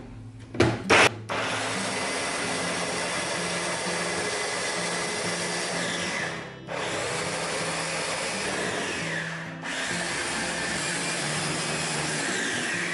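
Small electric food processor chopping peeled garlic cloves. A few sharp clicks as the motor top is seated about a second in, then the motor runs steadily with the blades whirring through the garlic, stopping briefly twice before starting again.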